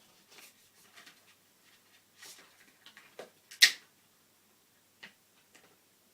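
Scattered light clicks and rustles of hands handling RAM modules at an iMac's memory slots, with one sharp, louder click about three and a half seconds in.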